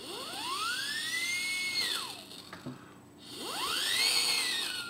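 Airplane sound for a plane trip: a whine that rises in pitch and then falls away, twice, with a hiss above it.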